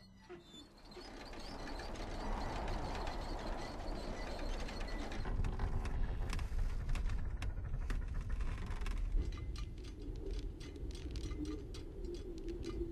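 A steady low rumble with scattered clicks and ticks from a film soundtrack's sound effects, with a hum in the middle range joining about nine seconds in.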